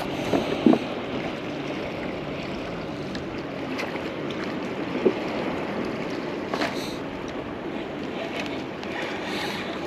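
Steady wash of water and wind around a small fishing kayak, with a few light knocks and clicks.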